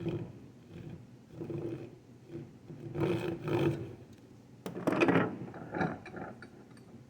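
Back saw cutting into wood to deepen a finger-joint kerf toward the shoulder line: a series of separate saw strokes, the strongest in the second half.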